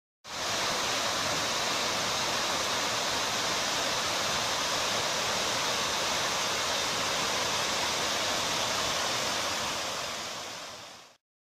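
Small waterfall below an old water mill, a steady rush of falling water that fades out near the end.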